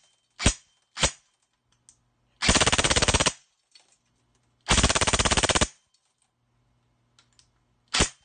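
Airsoft electric gun with an Option 1 brushless motor on a 7.4 V LiPo firing: two single shots, then two short full-auto bursts at about 17 rounds a second, then one more single shot near the end.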